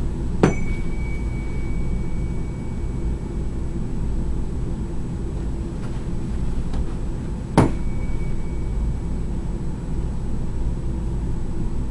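Tuning fork struck twice, about seven seconds apart, for a hearing test: each strike is a sharp tap followed by a high ringing tone that slowly fades. A steady low hum runs underneath.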